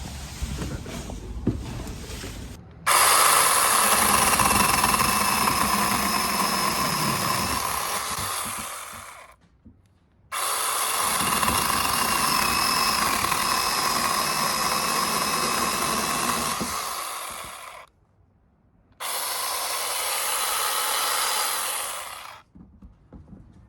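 Battery-powered 6-inch mini chainsaw cutting through a maple branch in three long runs of several seconds each, with short pauses between them. Each cut starts suddenly, the motor's whine over the chain tearing through wood, and tails off as the cut finishes.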